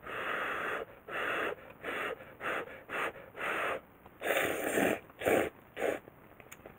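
Ramen noodles being slurped from a mess tin: a quick run of about nine noisy sucking slurps, each under a second long.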